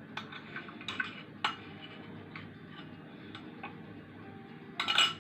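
Scattered light clicks and taps of kitchen utensils against a container as a thick onion-and-honey mixture is transferred into a dark syrup bottle, with a louder clatter near the end.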